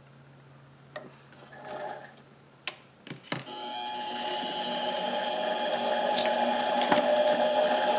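Harbor Freight mini lathe starting up about three and a half seconds in, after a few clicks of handling at the tool post. Its motor and spindle then run with a steady whine that grows louder over the following seconds.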